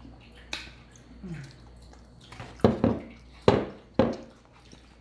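A hot sauce bottle is shaken and knocked over a dish of mac and cheese. There are four sharp knocks between the middle and near the end, and a small click and a brief squeak before them.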